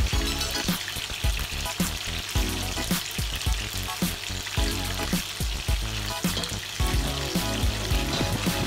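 Battered chicken pieces sizzling steadily in hot oil in a stainless steel skillet, with background music carrying a steady low beat.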